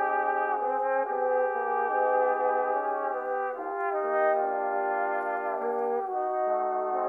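A brass quartet of three cornet parts and a tenor horn playing held chords that change every second or so.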